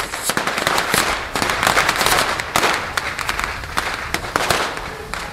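Pyrotechnics going off all at once: a sudden start of rapid, irregular firecracker cracks and pops over a dense hiss as a line of red hand flares is lit. The cracking is loudest in the middle and eases a little near the end.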